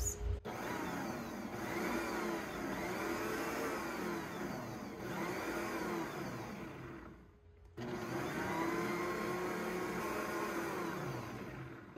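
Bosch stand mixer's motor running with the dough hook turning through flour and liquid, the first mixing of a bread dough. It runs in two goes with a short stop about seven seconds in, its whine rising and falling in pitch.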